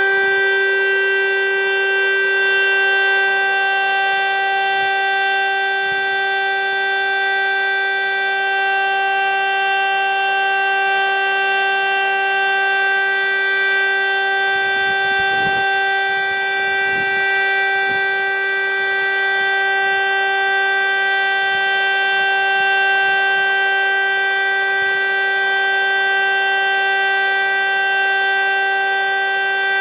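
VEM DS977 electric motor siren sounding one steady tone, held at constant pitch with a rich stack of overtones. This is the continuous 'Zkouška sirén' siren-test signal.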